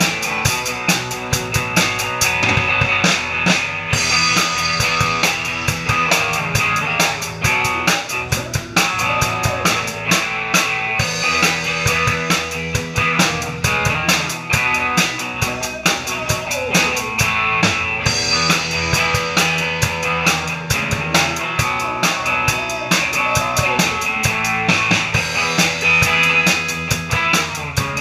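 Rock band playing a song live, with the drum kit up close and loudest: a steady beat of bass drum, snare and cymbal hits over electric guitars.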